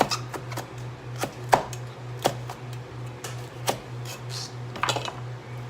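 Kitchen knife chopping bell pepper on a cutting board: about a dozen sharp, irregular knocks, over a steady low hum.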